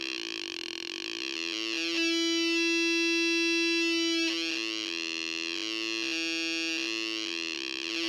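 Electronic sound effects generator circuit putting out a steady, buzzy tone whose overtones warble and sweep as its potentiometer is turned. From about two seconds in, the tone holds louder and steady for a couple of seconds, then goes back to warbling.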